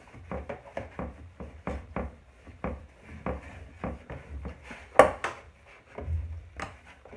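Wooden rolling pin rolling out mochi dough on a cornstarch-dusted wooden board: a run of soft knocks and rubbing, with one sharper knock about five seconds in.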